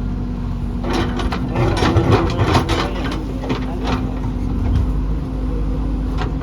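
Engine running steadily with a low hum, overlaid by a run of clattering knocks and rattles from about a second in until about four seconds in.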